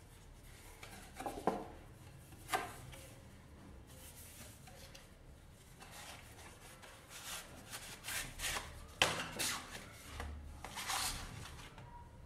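Stiff card stock and a paper envelope being handled: two sharp knocks about one and two and a half seconds in, then a run of rustling and sliding scrapes as the card is drawn out of its envelope and laid down.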